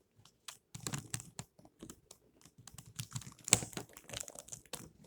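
Plastic pieces of a stickerless Rubik's cube clicking and rattling irregularly as a piece that will not fit is pressed back into the partly reassembled cube.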